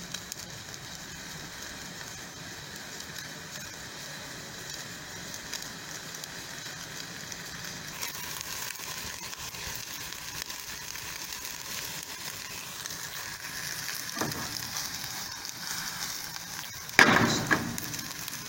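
Meat sizzling in a frying pan, the hiss growing louder and brighter about halfway through. A single knock comes about three-quarters of the way in, and a loud clatter near the end.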